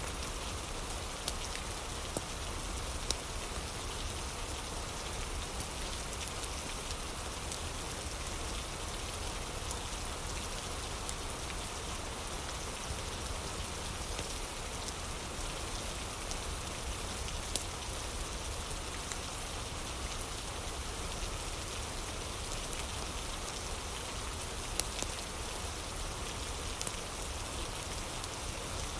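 Steady rain falling, with a few sharp pops scattered through it from a crackling wood fire.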